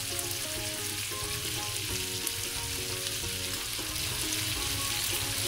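Boneless chicken pieces frying in butter in a nonstick pan: a steady sizzle.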